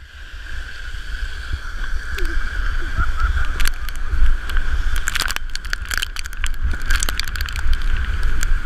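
Sled sliding fast down a snow slope: the hiss and scrape of the sled over the snow with many quick clatters from bumps, under heavy wind rumble on the microphone. It grows louder over the first few seconds as the sled picks up speed.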